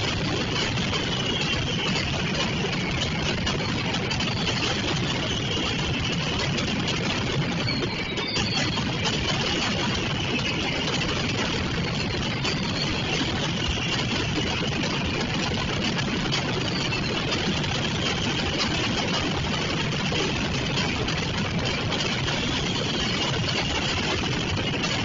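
Mascletà firecrackers: a dense, unbroken barrage of bangs coming so fast that they run together at a steady level, with high wavering whistles over them.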